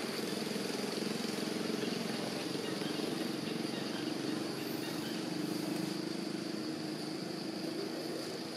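A motor engine running steadily, easing off a little near the end, over a constant high-pitched insect drone.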